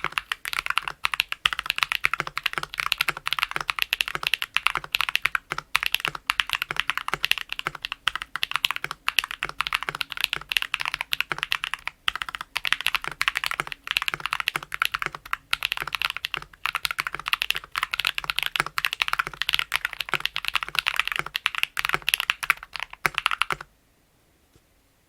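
Fast, continuous typing on a modded YC66 mechanical keyboard with lubed Akko CS Ocean Blue tactile switches and PBT Cherry-profile keycaps, tape-modded and PE-foam-modded. The typing stops suddenly near the end.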